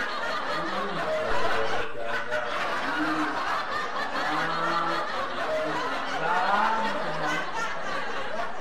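Snickering, chuckling laughter over a steady hiss, with short pitched laugh sounds scattered throughout.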